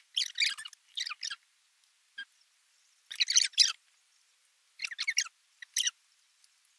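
Crispy fried chicken crunching as it is bitten and chewed, in several short crackly bursts with pauses between.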